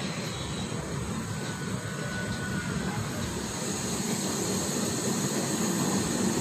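Steady running noise of a moving express passenger train heard from aboard: an even rumble and rush of wheels on rails and air past the coach.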